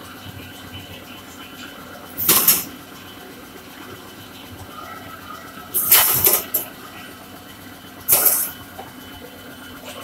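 Net sealing and cutting machine working through its cycle. It gives three short, loud bursts of hiss, about two to four seconds apart, as its pneumatic actuators fire, over a steady machine hum.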